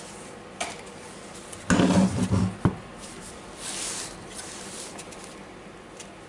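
Hands handling small drill parts and new carbon brushes: scattered light clicks, a brief louder clatter about two seconds in ending in a sharp click, and a short scraping rustle near four seconds.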